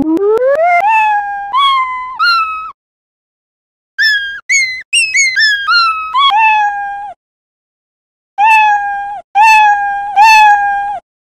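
Scratch's built-in 'Meow' cat sound effect played over and over, often cut off and restarted with a click, at changing pitch: it climbs from low to high in the first second, jumps higher still, then settles lower. It comes in runs separated by two short silences.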